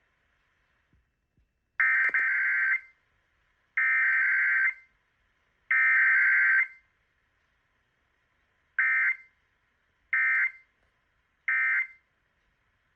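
Emergency Alert System SAME digital data bursts: three loud bursts of about a second each, a second apart, then, after a longer gap, three short bursts about half a second each. This is the header sent three times followed by the three end-of-message bursts of a Required Weekly Test, with no attention tone in between.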